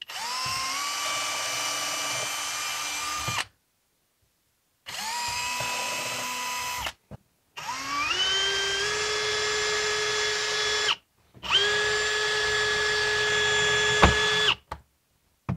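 Power drill boring screw holes through the plastic of a Milwaukee Packout case for hinge mounting. It runs four times, each run winding up quickly to a steady whine, with a sharp click near the end.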